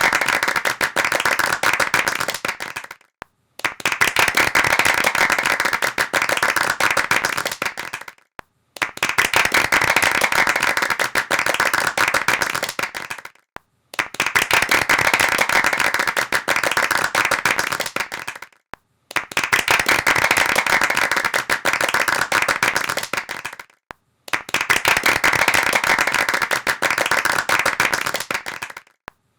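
Hands clapping rapidly in repeated takes of about five seconds each, every take tapering off and then stopping briefly before the next begins.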